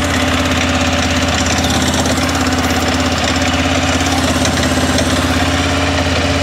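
The 2006 Arctic Cat 400 ATV's single-cylinder four-stroke engine runs steadily just after starting, now that a new flywheel rotor has restored its spark. It is a little bit noisy, which the mechanic puts down to the oil having been drained, with the oil cooler not yet refilled.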